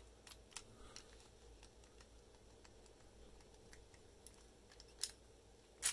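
Faint scattered clicks of a hand-filed brass key being worked in a padlock, with two sharper clicks near the end.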